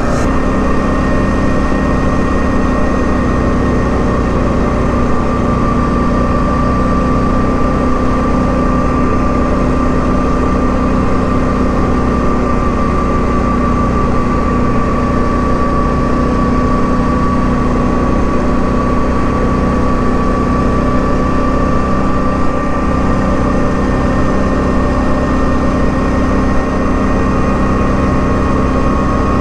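ATV engine running at a steady cruising speed while riding along the road, a constant drone with a steady high whine over it.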